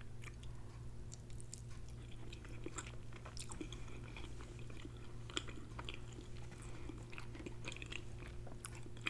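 Mouth sounds of a person chewing a mouthful of creamy pepper jack mac and cheese: faint, irregular soft wet clicks and smacks.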